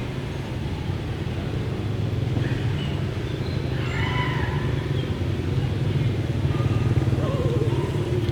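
A steady low rumble like a motor running, with a few faint short higher sounds about halfway through.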